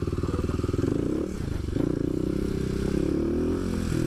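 Kawasaki KLX250 supermoto's single-cylinder four-stroke engine running under throttle while riding off-road, the engine note dipping about a second in and then picking back up.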